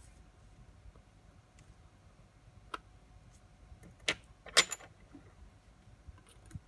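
A few small metallic clicks and clinks of watch parts and watchmaker's tools being handled on a bench. The loudest comes about four and a half seconds in and rings briefly.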